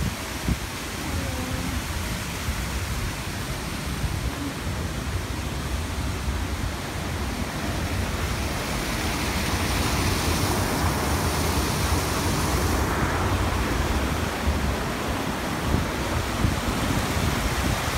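Steady rushing of water running over rocks in a small park stream and cascade, growing somewhat louder about halfway through, with a low rumble of wind on the microphone.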